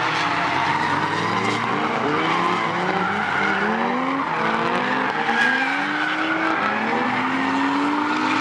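Car engine revving in repeated rising surges while the tyres squeal through a drift, with one longer climb in revs near the end.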